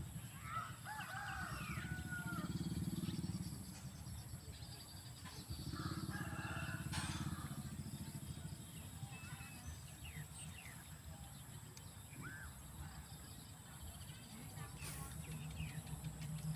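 A rooster crowing, with smaller birds chirping, over a low rumble that swells in the first few seconds and again a few seconds later.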